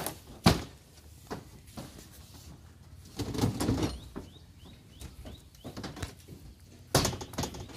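Knocks and thuds of speaker flight cases being handled and set down on a stage deck. There is a sharp knock about half a second in, a scraping stretch around the middle, and another knock near the end, with a few faint short bird chirps in between.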